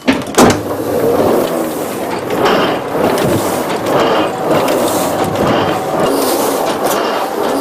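Letterpress printing press set going with two sharp clacks, then running with a steady, repeating mechanical clatter of its grippers and cylinder as it prints sheets.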